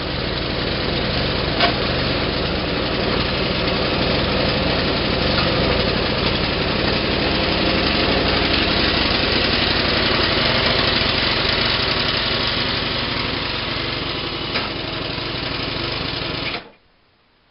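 Gasoline snowblower engine running steadily, then cutting off suddenly near the end.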